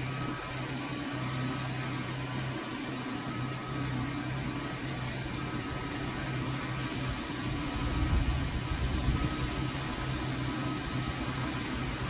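A steady low motor hum, with a louder low rumble about eight seconds in.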